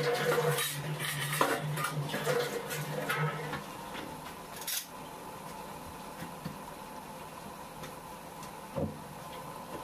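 Kitchen dishes and utensils clattering and clinking for the first three seconds or so, then only a couple of single knocks.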